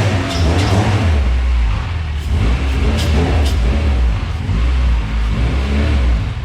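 H2B-swapped Honda Civic running on E85, engine revving hard as it accelerates, with a few sharp exhaust pops.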